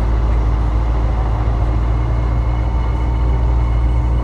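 Dodge Charger SRT8's V8 running steadily while the car cruises, picked up by a camera mounted on the car. The sound is a steady, heavy low sound without breaks.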